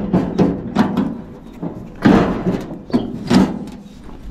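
Irregular clunks and rattles of a pipe wrench and the sheet-aluminum evaporator housing as the wrench is worked against a copper pipe fitting, the loudest knock about two seconds in.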